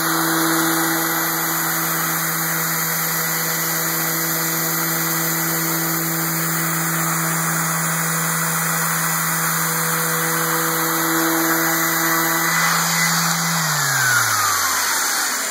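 Festool disc sander running together with its hose-connected dust extractor, a steady whirr with airy suction noise. About thirteen seconds in both are switched off and spin down, the pitch falling away.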